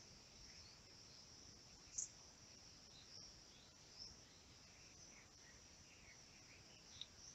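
Near silence: a faint steady high-pitched hiss with a few faint short ticks, the loudest about two seconds in and another near the end.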